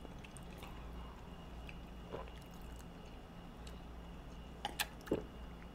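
Quiet sips of water from a drinking glass, with faint swallowing and a few small clicks near the end, over a low steady room hum.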